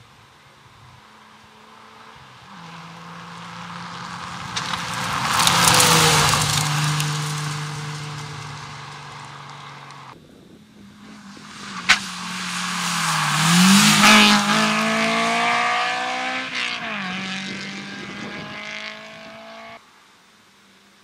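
Rally cars at full speed on a gravel stage, heard in two separate pass-bys, with the noise of tyres on gravel under the engine. The first car's engine swells as it approaches and fades away. After a sudden cut, a second pass brings a single sharp crack and revs that dip and climb again, before the sound cuts off abruptly near the end.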